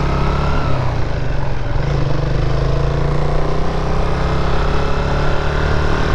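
Motorcycle engine running while riding at road speed, its pitch rising gently through the middle as the bike picks up speed.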